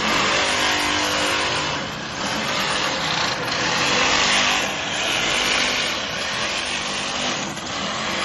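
Power tool working steel: a motor's steady hum under loud, rough hissing noise that swells and eases, starting abruptly.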